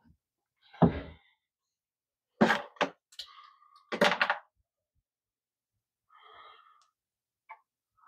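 A dull thump about a second in, then two sharp knocks and a cluster of knocks a second or so later: a metal transfer switch enclosure being handled and bumped against the plywood wall while it is lined up for mounting.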